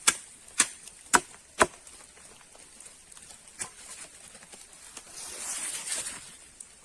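Four sharp knocks in quick succession, about half a second apart, then a single fainter knock, and a short hiss near the end.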